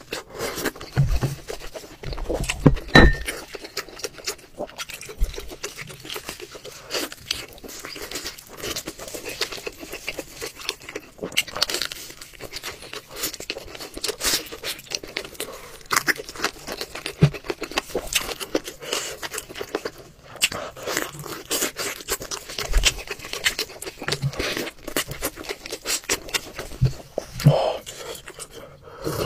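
Close-miked eating sounds of a spicy, saucy meat dish: chewing and wet lip-smacking in an irregular run of clicks and smacks. Near the end a hissing intake of breath at the heat of the chilli.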